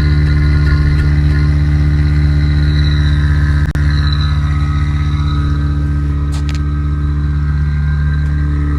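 Mazda RX-7 rotary engine idling steadily, with a brief click a little under four seconds in.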